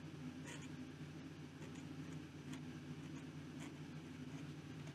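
Zebra G flex nib in a fountain pen scratching across paper in short, faint strokes while writing cursive, over a steady low hum.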